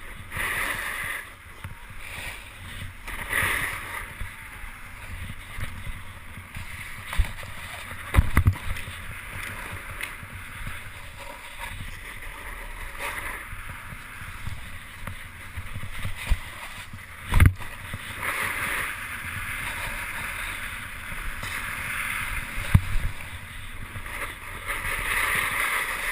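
Snowboard sliding over snow: a steady scraping hiss that swells and fades, with wind rumbling on the microphone, broken by a few sharp thumps, the loudest about seventeen seconds in.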